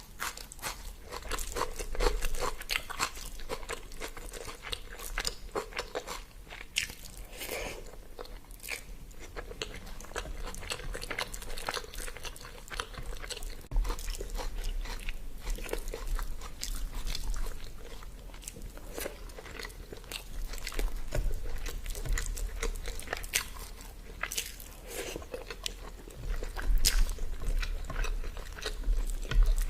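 A person eating close to the microphone: irregular crunching and chewing, with many short, sharp crunches.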